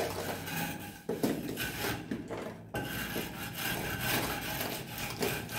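A small piece of wood scraping excess fresh mortar from around an electrical box set in a masonry wall, in repeated rough scraping strokes.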